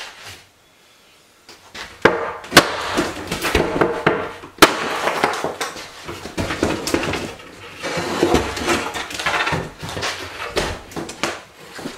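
Thin mobile-home wall paneling and closet shelving being yanked and pried loose by hand: irregular cracking, snapping and scraping that starts about two seconds in, with sharp cracks at about two and a half and four and a half seconds.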